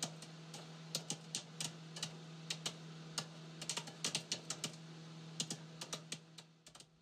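Irregular sharp clicks, a few a second, like typing on a computer keyboard, over a steady low hum. The clicks stop shortly before the end.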